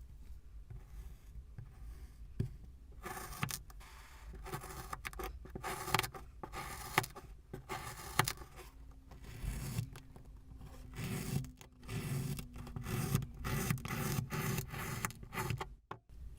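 Kinetic sand being worked by hand, squished and scraped in a run of short scraping strokes that starts about three seconds in and stops just before the end.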